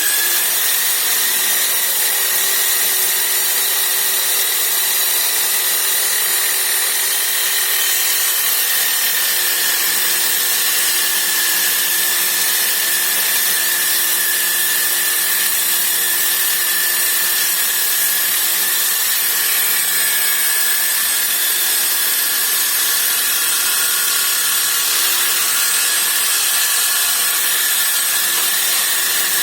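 Electric drill mounted in a stand as a makeshift table saw, its motor and spinning saw blade running at a steady speed.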